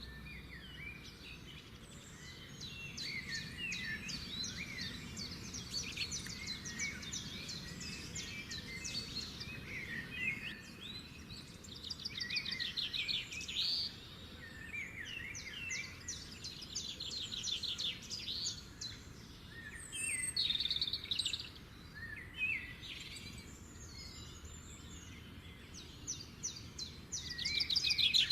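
Several birds chirping and singing at once, with quick rising and falling chirps and rapid trills, over a faint steady low background noise; the calls grow louder near the end.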